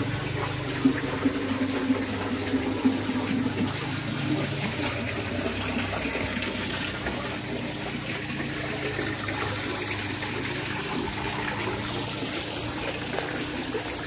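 Water running steadily down an artificial rock waterfall into a stone basin. A few light knocks come in the first three seconds.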